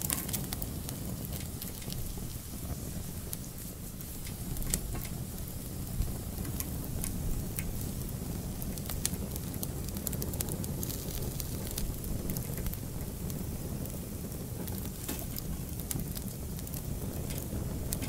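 Fireplace fire burning: irregular crackles and pops over a steady low rumble of the flames.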